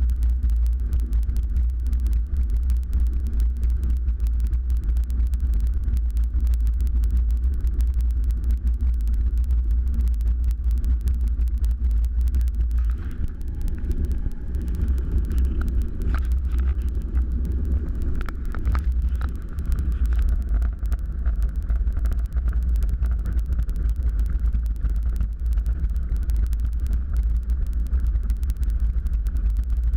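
Cozy Mk4's rear-mounted pusher piston engine running steadily at low power while the plane taxis, heard from inside the cockpit as a deep, continuous rumble. About halfway through, the sound shifts for several seconds and a few brief knocks stand out.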